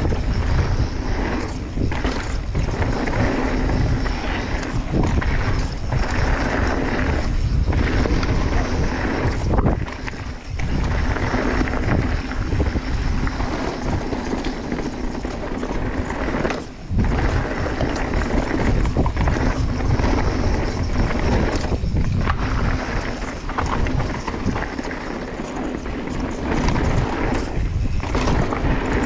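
Wind rushing over the camera microphone as a mountain bike descends a rocky trail, with the tyres rumbling and the bike rattling over rocks; the noise eases briefly twice.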